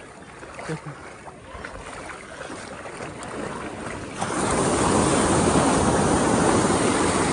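Sea surf and wind at the shore: a low wash that turns, about four seconds in, into a loud steady rush of breaking water and wind on the microphone.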